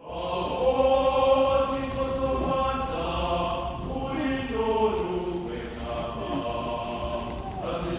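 Background music: a choir singing a slow chant, several voices holding long notes that shift pitch gradually.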